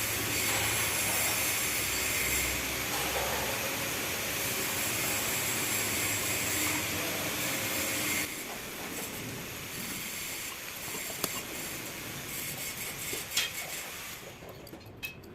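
A steady hissing noise that cuts off suddenly about eight seconds in, followed by a few light clicks.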